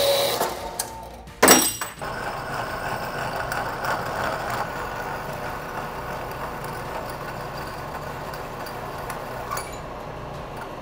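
A horizontal metal-cutting band saw runs briefly, ending in a sharp clank about a second and a half in. Then a milling machine cuts a miter in the end of a chromoly steel bicycle top tube: a steady, even cutting noise from the spinning cutter.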